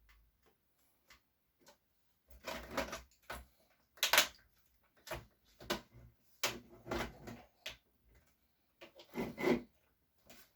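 Plastic laptop case parts being handled and fitted together during reassembly: an irregular run of clicks and knocks with short rubbing scrapes, starting about two seconds in.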